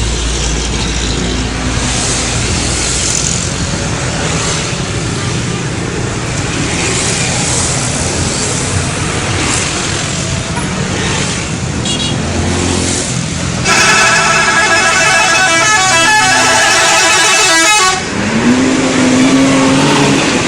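Road and traffic noise, then about fourteen seconds in a bus's multi-tone "telolet" musical horn plays a warbling tune loudly for about four seconds. Near the end a single lower horn-like tone rises and holds.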